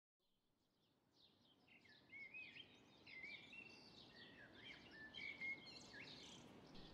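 Faint birdsong fading in from silence: several birds chirping and whistling over each other above a soft outdoor hush, growing louder over the first two seconds.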